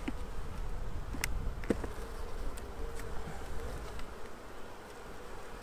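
Russian honeybees buzzing steadily around an opened nuc box. A few sharp clicks come from a metal hive tool working the braced frames loose.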